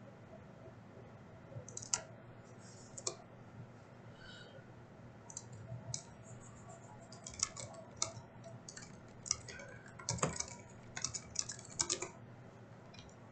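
Computer keyboard typing with mouse clicks: irregular clicks, a few at first, then quick clusters through the second half.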